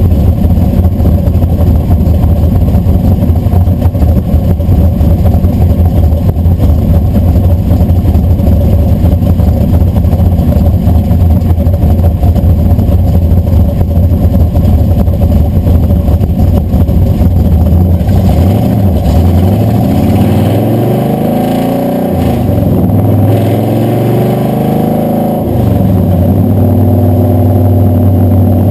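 Blueprint Engines 540 big-block Chevy V8 heard from beneath the truck, idling loud and steady. About 18 seconds in, the truck pulls away: the engine's pitch rises, drops back, rises again as it accelerates through a shift, then settles to a steady cruise near the end.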